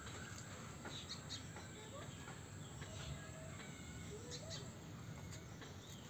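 Faint, scattered bird chirps over a steady low background rumble, with a few short calls in the middle.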